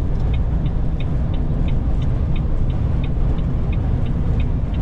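Steady engine and road rumble heard inside a moving lorry's cab on a wet motorway, with a turn-signal indicator ticking about three times a second, starting about a third of a second in.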